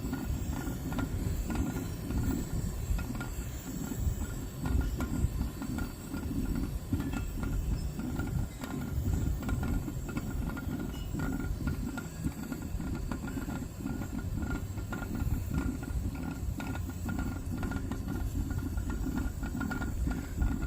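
Wind buffeting the microphone in an uneven low rumble. Underneath it, a glass Pyrex percolator perks on the burner.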